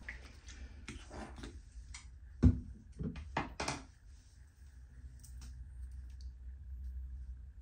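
Close handling noises: rustling with a run of clicks and knocks, the loudest a single low thump about two and a half seconds in, as things are picked up and put down.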